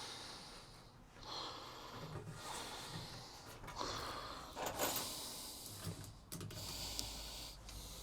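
A man breathing in short, hissy breaths close to the microphone, with a few light knocks of handling.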